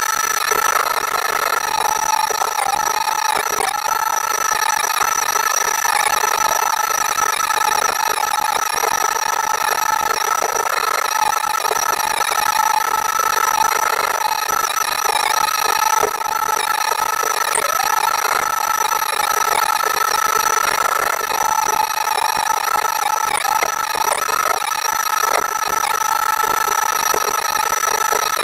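Cat 309CR excavator running a Cat HM210 hydraulic mulcher head, a steady high-pitched whine over the machine's engine.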